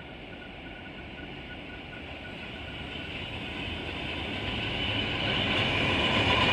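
Diesel locomotive GL109 approaching at the head of a train, its engine and wheels on the rails growing steadily louder as it nears.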